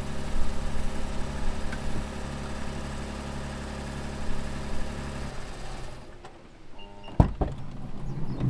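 Nissan Serena e-POWER minivan humming steadily while running, then shutting off about five seconds in. Near the end there are short beeps, a sharp latch click and the power sliding door starting to open.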